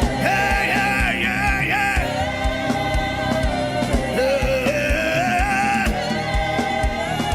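Gospel worship music: a voice singing over sustained instrumental chords and a steady drum beat of about two to three thumps a second.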